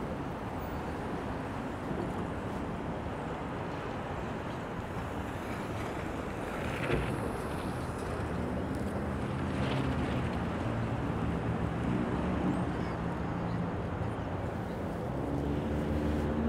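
Road traffic at a busy city intersection: a steady rush of passing vehicles. From about halfway through, a vehicle engine's hum grows louder over it.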